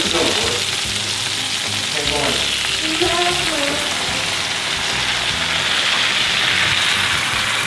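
Sliced bell peppers and onions frying in a hot skillet with a steady sizzle, as chicken broth is poured into the pan from a carton.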